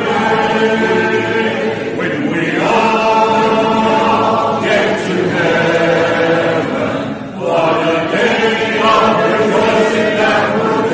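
Mixed voices singing a hymn together a cappella, in long held notes. The phrases break briefly about every two to three seconds.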